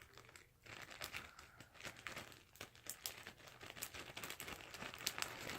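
Slime being squished and stretched in the hands, making faint, irregular crackles and small pops.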